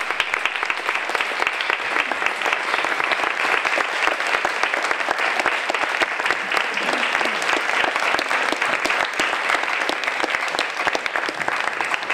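Audience applauding: many hands clapping together, held steady throughout.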